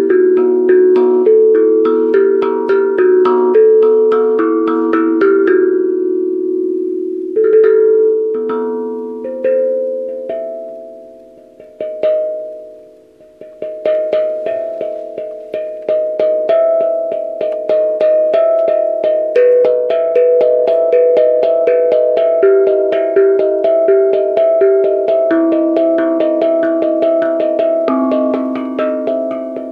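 A tuned percussion instrument played by hand: fast runs of struck, pitched notes that ring and overlap. About a third of the way in the playing thins to a few single notes that die away, then the rapid playing picks up again.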